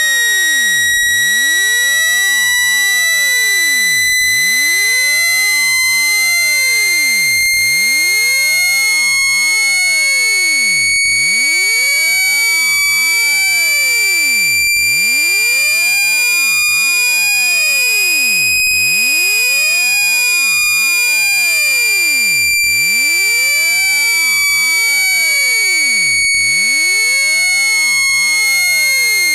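Synthetic speaker-cleaning tone, meant to shake water and dust out of a phone speaker: one loud, steady, high-pitched tone with overtones, gliding slowly upward in pitch until about two-thirds of the way through, then slowly back down.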